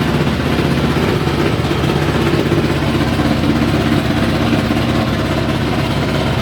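Haier front-loading washing machine on a 1400 rpm spin, making a loud, steady clattering rumble from deep inside towards the back. The owner suspects premature drum bearing failure.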